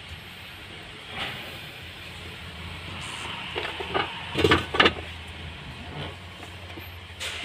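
Hands working the plastic top and fittings of a car's in-tank fuel pump assembly: a few short clicks and knocks, the loudest a cluster about four and a half seconds in, over a steady low hum.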